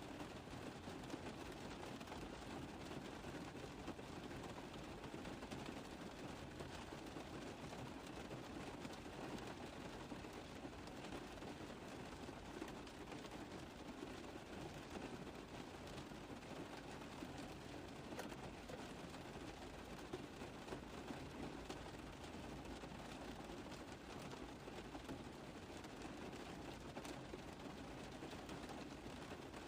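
Rain falling steadily on a car roof: a dense, even patter of many small drop impacts.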